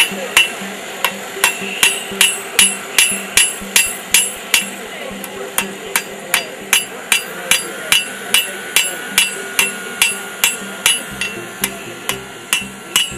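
Blacksmith's hand hammer striking hot iron on an anvil in a steady rhythm of between two and three blows a second, each blow with a bright metallic ring. The hot ends of the bar are being drawn out to points.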